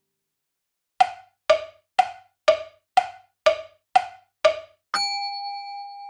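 Percussion sound effect: eight sharp knocks, two a second, alternating between a higher and a lower pitch, then a single bell-like ding about five seconds in that rings out and fades.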